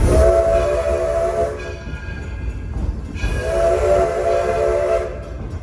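Steam locomotive's whistle sounding two long blasts, each a held chord of several notes, as the train nears a road grade crossing, over the low rumble of the moving train.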